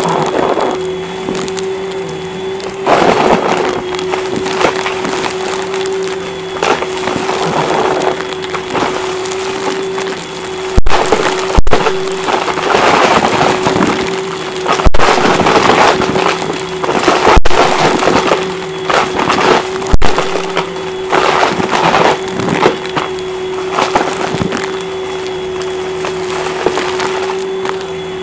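Upright vacuum cleaner running with a steady motor hum and a thin high whine, while the confetti, sequins and small hard bits it sucks up off the carpet crackle and rattle through the head and hose in irregular bursts. A few sharp clicks sound in the middle.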